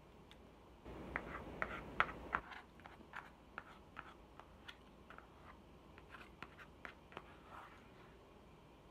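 Thin plastic takeaway food tray crackling and clicking as it is held tipped up to the mouth to eat from: a burst of crackles from about one to two and a half seconds in, then scattered single clicks.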